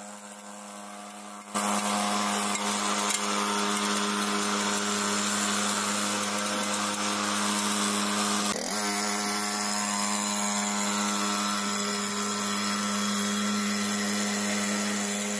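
Small brushcutter engine running steadily at a constant speed, driving a homemade child's snowmobile. It gets abruptly louder about a second and a half in, with a brief break just past halfway.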